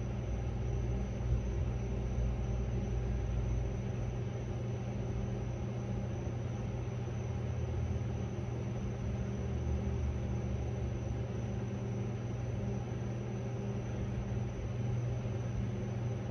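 Patrol car driving at pursuit speed: a steady low engine and road drone heard from inside the cabin.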